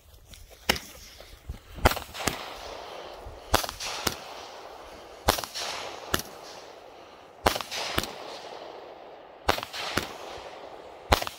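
A 200-gram consumer firework cake firing shot after shot, about one every two seconds. Each shot gives two or three sharp reports a fraction of a second apart, followed by a fading tail of noise.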